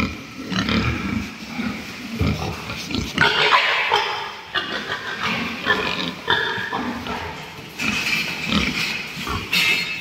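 A group of pigs grunting and squealing, the high squeals coming one after another over low grunts.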